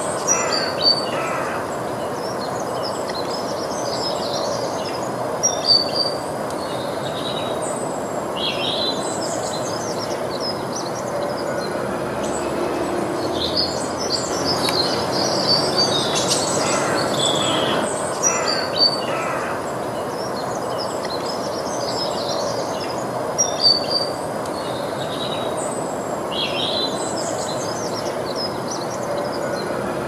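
Small birds chirping and twittering in short, high calls scattered throughout, over a steady rushing background noise.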